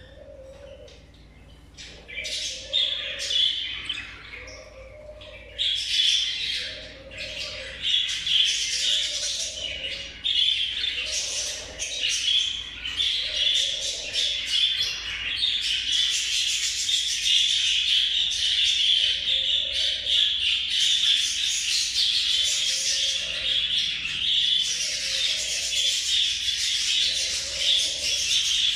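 Lacewing budgerigars chattering and warbling. The song starts about two seconds in and runs on almost without a break, a dense stream of high chirps and scratchy notes.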